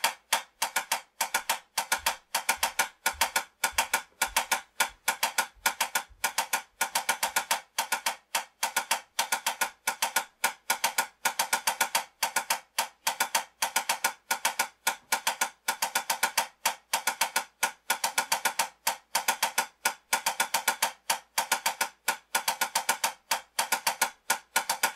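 Wooden drumsticks playing a sixteenth-note timing exercise on a small drum: even strokes in a steady pulse, with runs of four, two and one strokes per beat played straight through.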